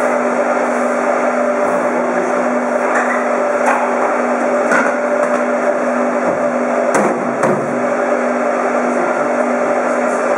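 Meat bowl cutter's motor running with a steady hum, with a few short knocks and clatters of handling over it.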